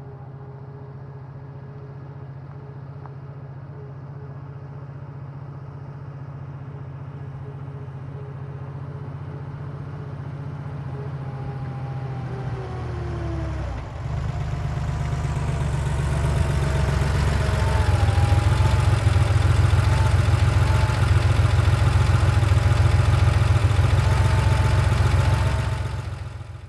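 1990 Porsche 911's air-cooled flat-six engine running, growing steadily louder for about eighteen seconds with a brief drop in the engine note about halfway through, then holding loud and steady before fading out near the end.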